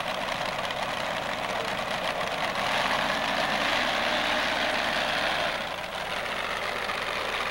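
Modified pulling tractor's open-stacked racing engines running loud at the start line, growing louder a few seconds in. Near the end, after a brief dip, the tractor is under way on its pull.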